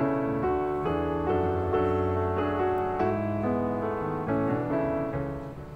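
Background instrumental music: a keyboard melody of short notes following one another in steady succession.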